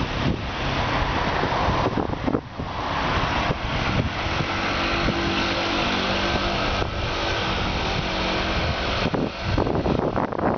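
Wind rushing over the microphone of a camera carried on a moving bicycle, with a motor vehicle's engine running from about four and a half seconds in to about nine seconds in.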